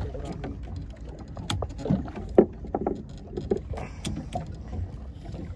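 Freshly caught fish landing on a fiberglass boat deck and flapping: a scatter of sharp knocks and slaps, the loudest about two and a half seconds in, over a low rumble.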